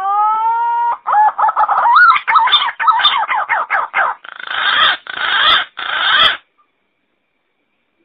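Green pigeon (punai) calls played as a hunting lure: one long rising whistle, then a run of warbling whistled notes that slide up and down, then three harsh, hoarse notes, after which it stops.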